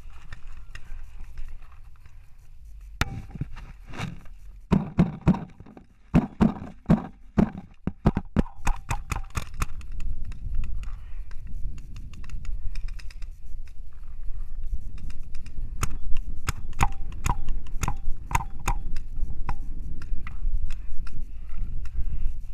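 Paintball markers firing in quick strings of sharp pops, one cluster a few seconds in and another in the second half, over a low rumble of wind on the microphone.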